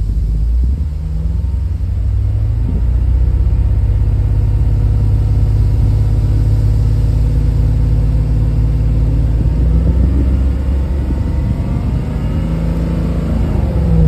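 1990 Lexus LS400's 1UZ-FE V8 idling through a custom exhaust with a Flowmaster Super 10 muffler and two Flowtech Terminator mufflers: a steady low rumble. Near the end it revs up and falls back toward idle.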